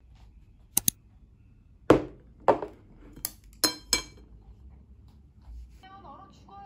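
Chopsticks clinking against a ceramic plate and a small sauce dish: about seven sharp clinks with a short ring, spread over a few seconds.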